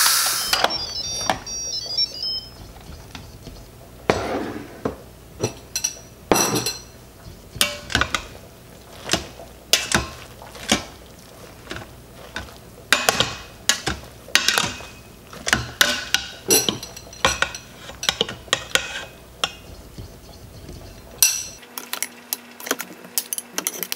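Instant Pot pressure cooker's steam release valve opened: a brief loud hiss of escaping steam that dies away about a second in. Then a metal serving spoon clinks and scrapes against the stainless steel inner pot again and again as cooked cabbage is lifted out.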